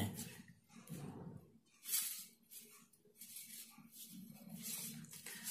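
Faint handling noises of thin insulated wire ends being twisted onto the terminals of a small LED bulb driver circuit board by hand, with a brief soft rustle about two seconds in.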